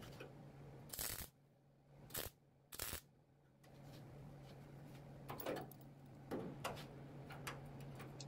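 Wire-feed MIG welder plug-welding a steel trunk-drop panel: three short bursts of welding in the first three seconds, over a steady low hum. Faint scattered ticks follow.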